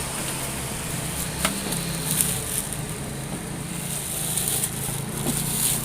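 Plastic packaging crinkling and a few light clicks as a new Canon PIXMA G1010 printer is handled, over a steady low hum.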